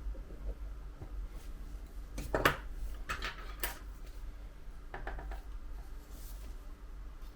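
Small metal tools and parts clinking and tapping against each other and the work surface: a few sharp clinks, the loudest about two and a half seconds in, with more soon after and again around five seconds.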